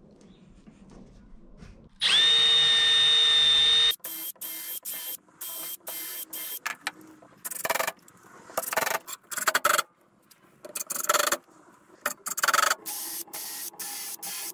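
Milwaukee M12 Fuel cordless drill running into plywood: one loud steady whine of about two seconds that starts with a short rise, then many short bursts of the motor.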